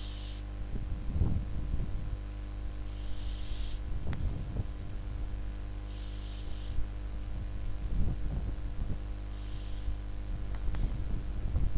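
Steady low electrical hum, with a short high trill about every three seconds and a few soft low thumps.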